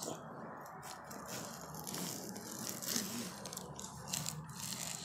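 Screen spline roller pressed and rolled along a window screen frame channel, a steady scraping with scattered clicks and rattles as it works the pet screen into the groove.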